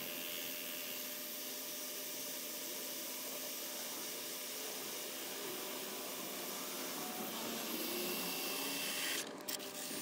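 RIDGID 18V cordless drill boring at an angle into a wooden gate post, sped up five times, so it sounds as a steady, even whir. The sound breaks up with a few short clicks near the end.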